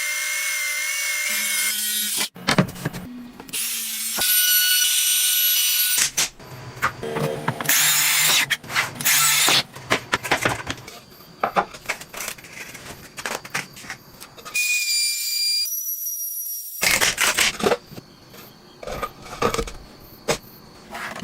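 Power tools drilling and cutting wood, with knocks and scraping. Short clips are cut one after another, so the sound changes abruptly several times.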